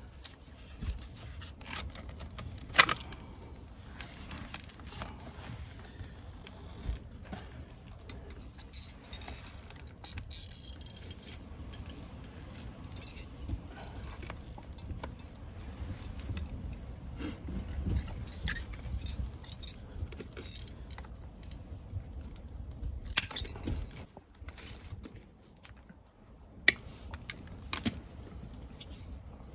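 Scattered clicks, scrapes and rustles of flexible plastic electrical conduit being handled, fed into a wall junction box and cut with hand cutters, over a low steady rumble. The sharpest clicks come about three seconds in and a few times near the end.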